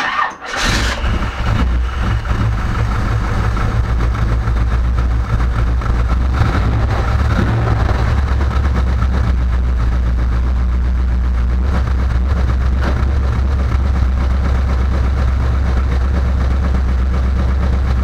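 A Chevelle's carbureted engine is cranked and catches almost at once without starting spray, runs unevenly for the first few seconds, then settles into a steady idle. It fires after a loose aftermarket ignition-module connector was replaced with a tight original GM one, which the owner thinks may have been the cause of the no-start.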